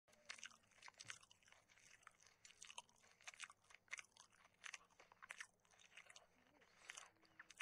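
A person chewing a mouthful of raw green vegetables: a run of crunches, about two a second.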